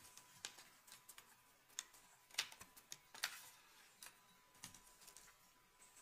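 Long hair being gathered and handled between fingers: faint, irregular crackles and sharp little clicks, the loudest two in the middle, over a thin steady high tone.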